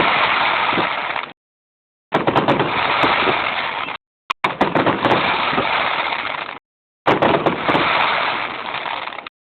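Fireworks going off in rapid bangs and crackles, very loud and overloading the microphone, in four stretches of about two seconds each with the sound cutting out completely in between.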